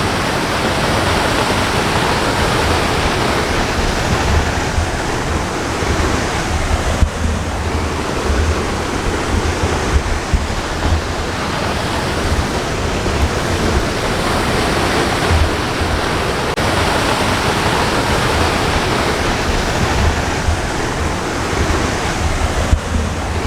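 A waterfall, the cascading triple falls of East Rifle Creek, pouring steadily: a constant rushing noise with a deep rumble underneath.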